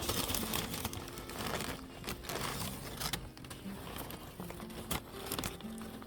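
Paper sandwich wrapper crinkling and rustling as a fast-food chicken sandwich is handled, with many short crackles throughout.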